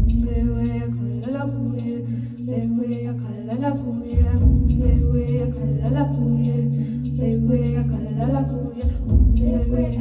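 A woman singing wordless, chant-like vocal lines into a microphone over looped layers of her own voice that hold a steady low drone. Deeper low swells come in about four seconds in and again near the end.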